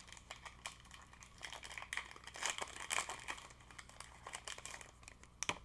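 Foil wrapper of a Pokémon TCG Evolving Skies booster pack crinkling as it is opened and handled: a quick, irregular run of crackles with a sharper snap near the end.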